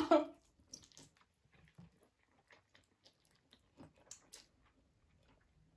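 A person chewing a mouthful of spicy instant ramen noodles: scattered soft, wet mouth clicks and smacks. A short burst of voice comes right at the start.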